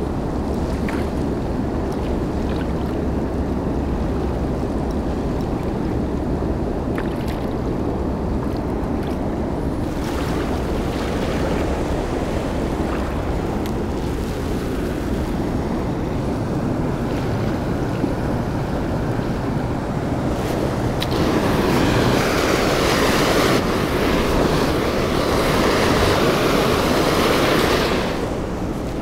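Steady rush of moving water, with wind noise on the microphone. About two-thirds of the way in, the rushing noise grows louder and hissier for several seconds, then drops back.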